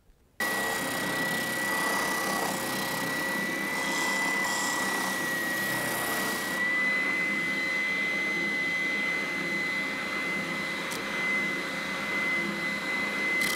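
Small power-driven sanding drum spinning with a steady high whine while it sands the rough blade marks off the inside curves of a plywood bandsaw box. The sanding hiss lessens about halfway through as the work eases off the drum.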